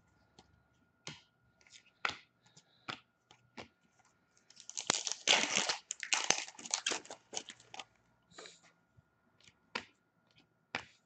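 A foil trading-card pack being torn open and crinkled, with cards being handled in short rustles and clicks. The loudest tearing and crinkling comes in a dense stretch about five to seven seconds in.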